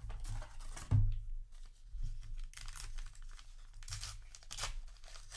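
Crinkling and tearing of trading-card packaging as the cards are handled, in several short rustling stretches, with a soft knock about a second in.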